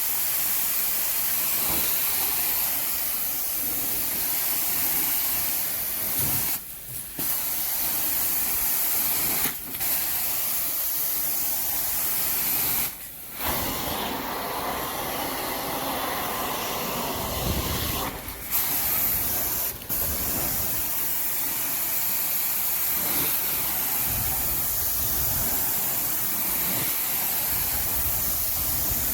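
Carpet extraction wand spraying rinse solution and sucking it back up, a loud steady hiss, cut off briefly about five times as the wand is lifted or the trigger is let go.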